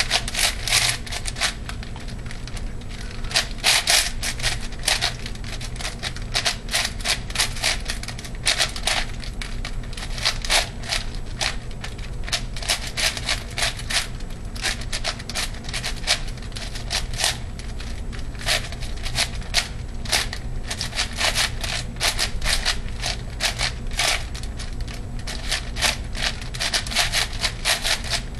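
ShengShou 8x8x8 puzzle cube turned fast by hand in a speedsolve: a rapid, irregular stream of plastic clicks and clacks as its layers snap round.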